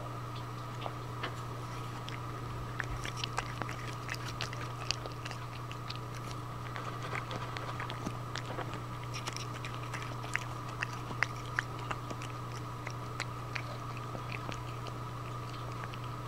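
A steady hum with small irregular clicks and ticks scattered through it, busiest in the middle.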